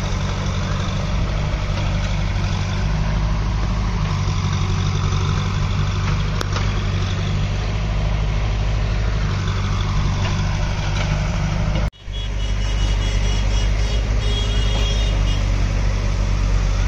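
Diesel engines of JCB backhoe loaders running steadily as they dig and load earth, a continuous low drone. The sound breaks off for an instant about twelve seconds in, then carries on slightly louder.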